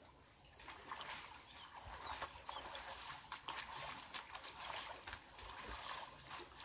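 Water splashing and sloshing as hands and a cloth bag are worked in a shallow stream. It is an irregular run of small splashes that starts about half a second in.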